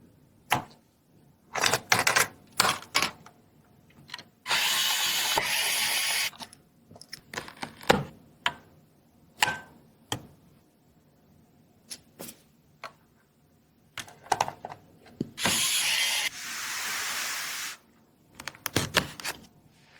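Computer parts being handled during a PC build: scattered clicks, taps and knocks, with two longer stretches of rustling noise, about four seconds in and again about fifteen seconds in.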